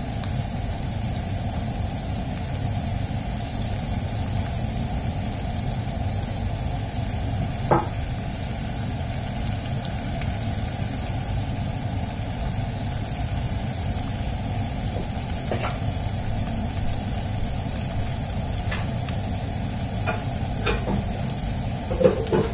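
Sliced kebab meat sizzling as it fries in a stainless steel pan, over a steady low rumble. A few short clicks, likely the spoon against the pan, come once about eight seconds in, again around sixteen seconds, and several times near the end.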